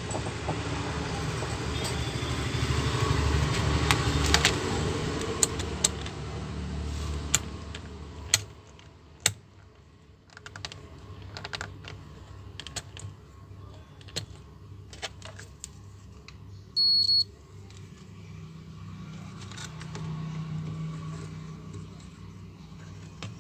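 Digital multimeter giving one short, high-pitched beep about two-thirds of the way through, the loudest sound here. Scattered sharp clicks and taps of tools and probes on a circuit board come before it, and a low background rumble fills the first third.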